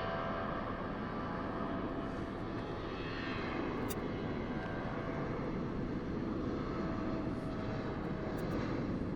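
Jet airliner flying low past on its landing approach: a steady engine roar with a whine that fades out in the last couple of seconds.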